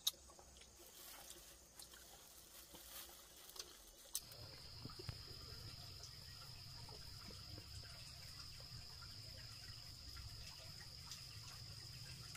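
Faint steady high-pitched insect trill, typical of crickets. It begins abruptly about four seconds in together with a low hum, after a few faint scattered clicks.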